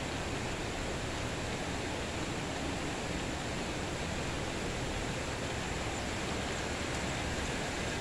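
Steady rain falling, an even hiss with no distinct drops or changes.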